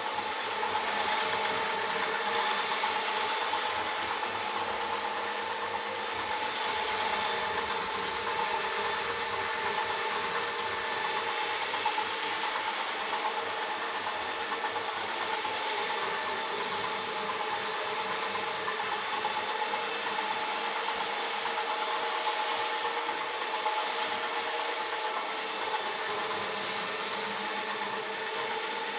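Rotary floor polisher machine scrubbing a carpet: its motor runs with a steady hum while the brush rubs through the carpet fibres with an even rushing hiss.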